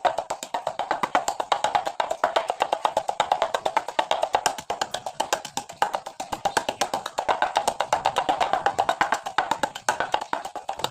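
Pestle pounding garlic and chilies in a mortar: rapid, steady knocks, several a second.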